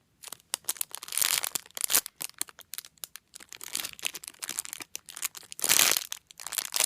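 Plastic packaging crinkling and crackling in the hands in irregular bursts as a foam squishy is handled and squeezed. The loudest bursts come about a second in and again near six seconds.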